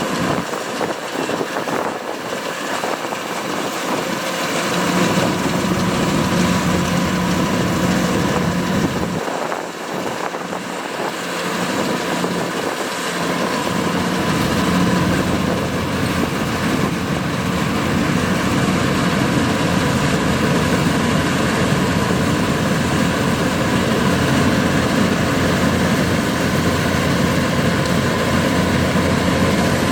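Kubota DC-105X combine harvester's diesel engine running steadily with its machinery. The deep rumble grows stronger about five seconds in, fades briefly around ten seconds, and builds again from about fourteen seconds.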